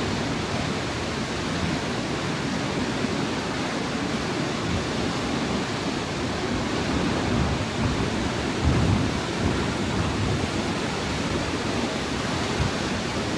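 Steady rushing roar of water pouring down Khamosh Waterfall, heard up close.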